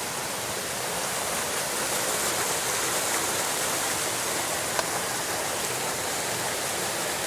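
Shallow stream water running steadily over a trail crossing, its rushing a little louder from about a second in. One brief sharp tick a little past the middle.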